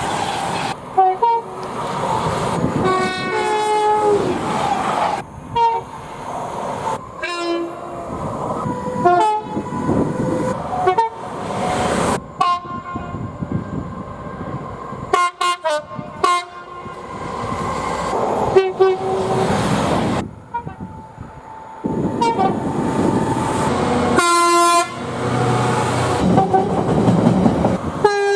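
Train horns from a series of different trains, sounded in short blasts one after another with abrupt cuts between clips. Each horn sounds several notes at once over the rumble of the passing train.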